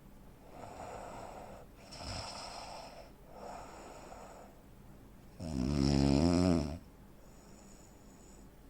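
A man with sleep apnea snoring heavily. Three noisy breaths come first, then one loud pitched snore lasting about a second and a half, then a fainter breath near the end.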